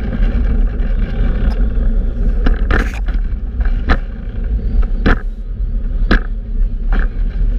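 Fixed-gear bicycle riding over city pavement: a steady rumble of tyre noise and wind on the microphone. From about two and a half seconds in, a sharp click comes roughly once a second.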